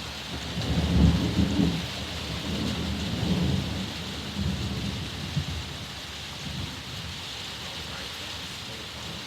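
Thunder rumbling low through steady rain: a rolling peal swells about half a second in, is loudest about a second in, and rolls on in waves for several seconds before fading under the rain hiss.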